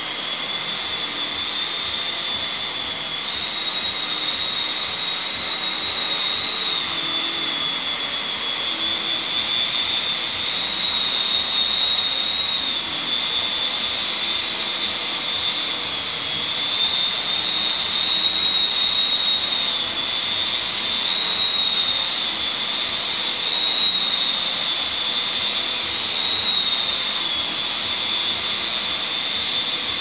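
Dyson upright vacuum cleaner running on carpet: a steady high whine over a broad rushing noise, its pitch wavering slightly up and down as it is worked back and forth.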